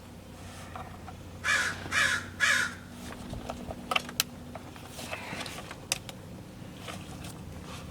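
A crow cawing three times in quick succession, followed by a few small sharp clicks.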